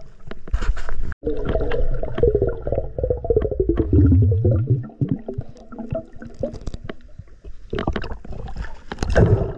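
Muffled underwater gurgling and bubbling with many small clicks and knocks and a low rumble, as heard by a camera held underwater by a swimming snorkeler; a louder gush of bubbles comes near the end.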